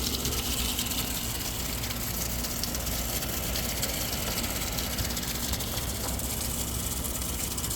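GE 6,200 BTU window air conditioner running from its outdoor side: a steady low compressor hum under the even rush of the condenser fan.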